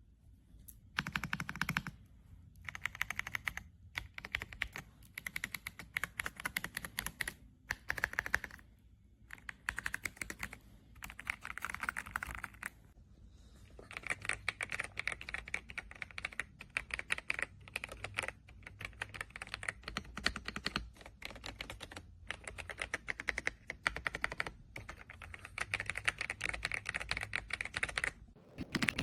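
Fast typing on an RK Royal Kludge R75 gasket-mounted mechanical keyboard: runs of rapid keystrokes broken by short pauses, becoming nearly continuous about halfway through.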